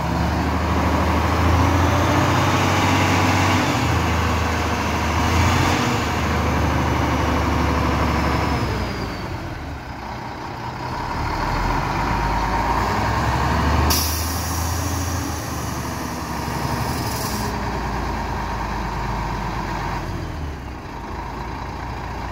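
Mack truck's diesel engine revved up and held high for several seconds, dropping back and then revving again before settling to a lower, steadier run. About two-thirds of the way through, a sharp burst of air hiss from the truck's air system lasts a few seconds.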